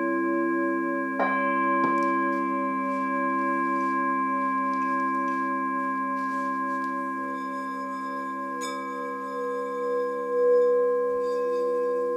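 Several frosted quartz crystal singing bowls ringing together in long, overlapping steady tones, one of them pulsing slowly. A few soft knocks come about a second in and again near nine seconds, and a new bowl tone swells up in the second half as another bowl is played with the mallet.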